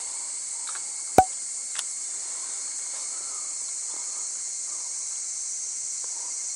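Steady high-pitched chorus of insects, with one sharp click about a second in and a fainter click just after.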